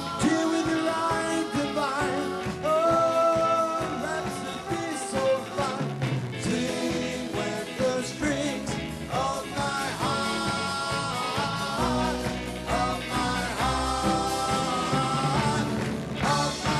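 Doo-wop vocal group singing close harmony at their microphones over a live backing band, holding long sustained notes.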